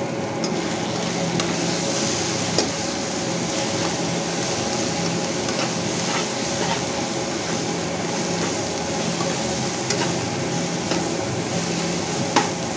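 Chopped onion and tomato masala with freshly added ground spices sizzling in a non-stick kadai while a steel spatula stirs and scrapes it, with scattered light clicks of the spatula against the pan. The spices are being fried into the masala once the onion and tomato water has dried off.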